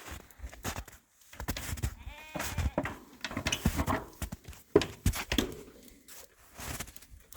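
Goats bleating, with one clear pitched bleat about two seconds in, over footsteps.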